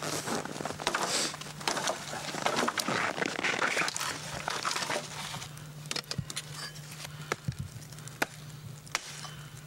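Small fire of dry sticks and grass crackling and hissing as it catches. The crackling is dense at first and thins to scattered sharp pops from about five seconds in.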